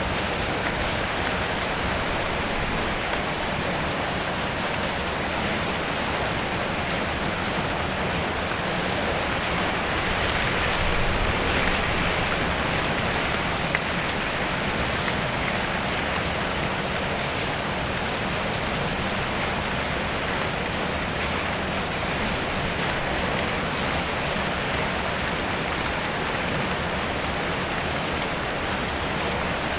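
Steady rain falling on a car's metal body and roof: an even hiss of countless drops, swelling a little heavier for a few seconds about ten seconds in.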